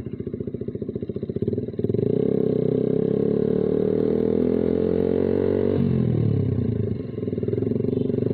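Suzuki Satria FU's single-cylinder four-stroke engine through a Mahachai racing exhaust under way. It pulses lightly at first, then about two seconds in the throttle opens and it gets louder, its pitch climbing steadily for about four seconds. Then the pitch drops sharply as it shifts up and it keeps pulling, with a short lift of the throttle near the end.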